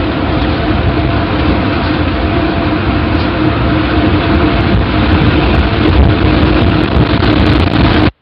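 A loud, steady rumbling roar like a tornado passing, with a low hum running through it. It cuts off abruptly near the end.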